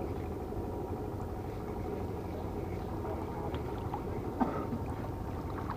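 Steady low rumble of harbour background noise, with a few faint ticks and one sharp click about four and a half seconds in.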